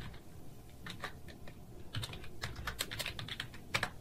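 Typing on a computer keyboard: irregular key clicks in short runs, busiest in the second half, with a quick loud cluster near the end.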